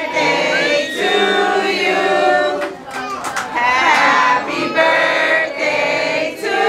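A group of people singing a birthday song together around a cake with lit candles, in sung phrases with held notes and short breaks between them.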